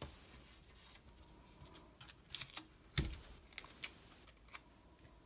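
Clear sticky tape and paper being handled: fingers pressing and smoothing tape along a fabric edge, giving a scatter of small clicks and crackles, with a louder knock about three seconds in.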